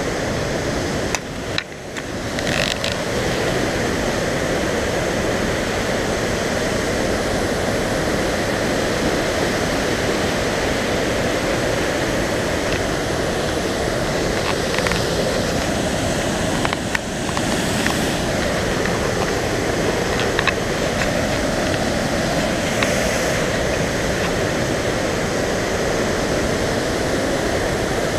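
Large river waterfall and rapids rushing steadily, a loud, even wash of water. A few brief knocks about two seconds in and again around seventeen seconds.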